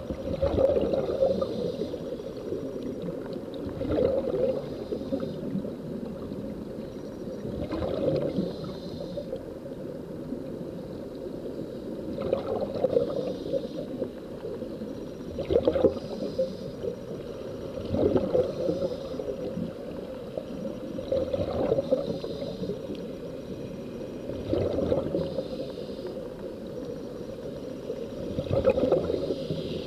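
Underwater recording of air bubbling: a steady muffled rush with a louder gurgling burst every three to four seconds, as air escapes from sea-walking helmets.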